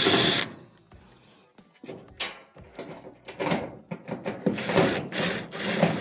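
Cordless drill/driver backing Phillips screws out of a dryer's sheet-metal top panel: a run of the motor that stops about half a second in, then irregular clicks and knocks from the bit and screws, and more short runs near the end.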